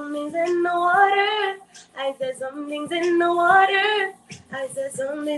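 A woman singing solo, three long phrases with held, wavering notes separated by short breaths.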